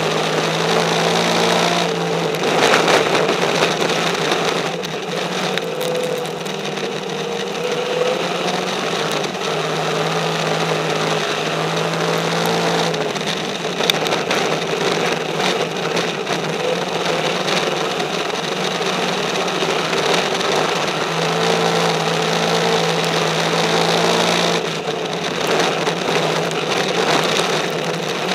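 Race car engine at racing speed, heard from inside the cockpit over rushing wind and road noise, its note easing and picking up again several times as the throttle is lifted and reopened around the track.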